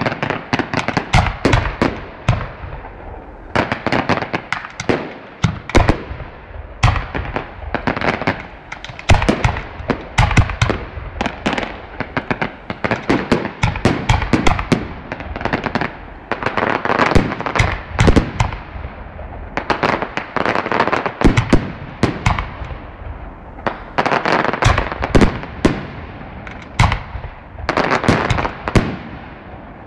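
Aerial fireworks display: a dense barrage of shell bursts and sharp bangs, several a second, coming in waves with brief lulls between.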